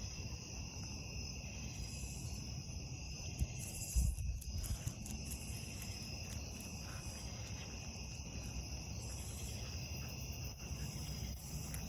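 Steady chorus of insects, a continuous high-pitched trilling, over a low rumble of wind or microphone handling, with a brief bump about four seconds in.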